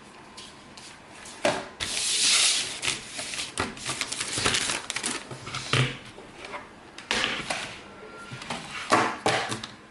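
Handling noise: rustling and rubbing with irregular knocks and clicks, loudest in a hissing rustle about two seconds in.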